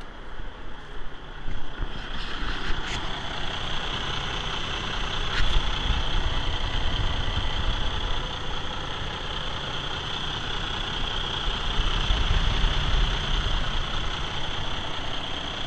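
Cummins ISX15 inline-six diesel truck engine idling steadily, heard close up in the engine bay, with a steady high whine joining the low rumble about two seconds in.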